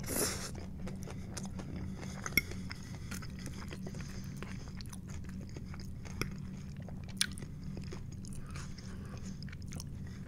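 A person chewing a mouthful of loaded tater tots, with wet mouth noises and a few sharp clicks, over a steady low hum.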